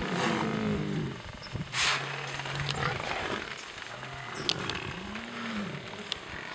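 Lionesses growling and snarling in a series of low, drawn-out calls: one falling in pitch at the start, long even ones in the middle, and one rising then falling near the end. A short loud hiss comes about two seconds in.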